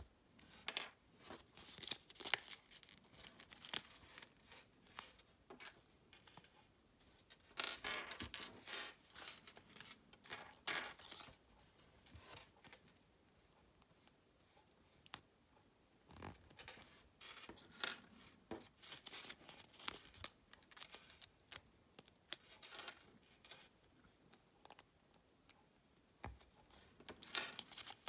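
A Kinder Surprise egg being unwrapped and opened by hand: foil wrapper crinkling and tearing in irregular bursts, with small sharp clicks and taps between short pauses.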